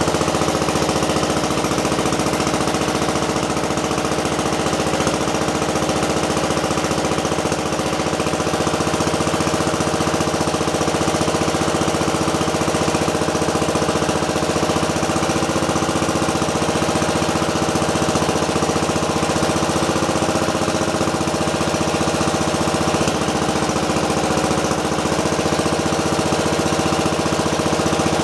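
1961 Original Cub Cadet's single-cylinder Kohler engine running steadily just after a cold start.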